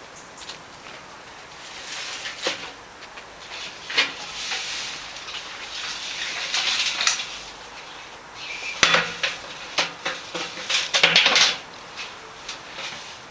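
Clinks and knocks of metal things being handled, with rustling in between; several sharp knocks stand out, and the busiest clatter comes near the end.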